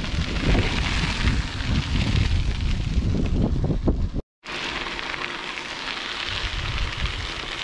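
Wind buffeting a camera microphone while cycling: a heavy, uneven rushing rumble. It cuts out for an instant just past halfway, then goes on as a steadier rush.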